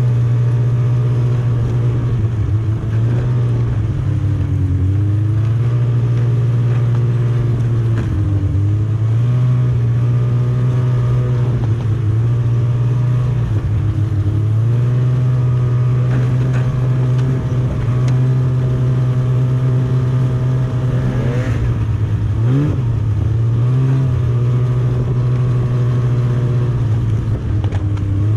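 Snowmobile engine running steadily under throttle, its pitch easing down and back up several times as the throttle changes, with a quick drop and climb a little past the middle.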